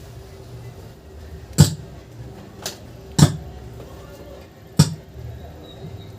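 Faint music coming through the speaker of a 4440 double-IC amplifier under test, broken by three sharp loud pops about a second and a half apart and a smaller click between the first two.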